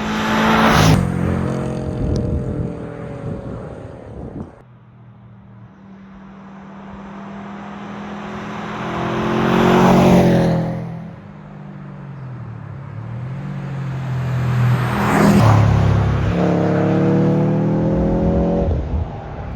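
A 2005 Subaru WRX STI's turbocharged flat-four engine driving by, getting louder as the car comes close and fading as it goes, three times over. Near the end it accelerates, the engine pitch climbing.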